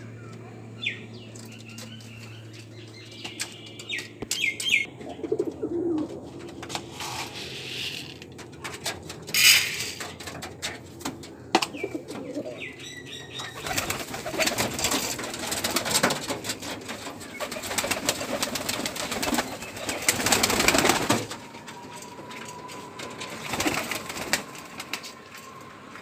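Domestic pigeons feeding in a loft: wings flapping and a little cooing, with scattered sharp taps of pecking. Past the halfway point comes a long flurry of wingbeats that is loudest just before it dies down.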